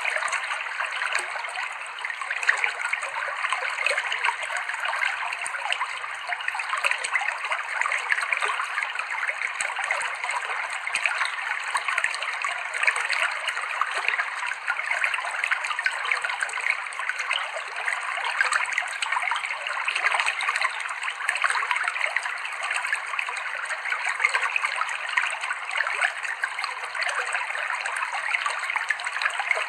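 Clear river water flowing and trickling over rocks, a steady bubbling rush with no lulls.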